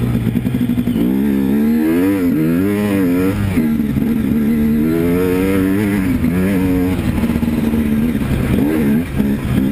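KTM two-stroke dirt bike engine being ridden hard, heard on board, its pitch rising and falling again and again with the throttle and gear changes.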